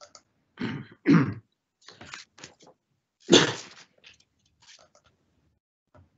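A person coughing and clearing their throat: two quick coughs about half a second in, smaller throat noises after, and the loudest cough a little past the middle.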